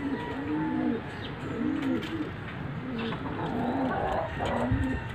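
Domestic racing pigeons cooing: a steady run of low, rising-then-falling coos, about one a second.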